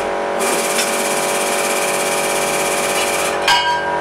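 A hydraulic press's pump and motor run steadily as the ram presses down. About three and a half seconds in, there is a short high metallic ring with a click, as the pressed metal plaque gives.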